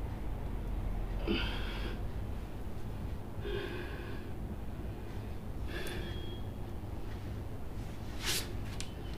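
A man breathing hard through a yoga pose: a short, noisy breath about every two seconds, over a steady low hum. A sharp click or tap comes near the end.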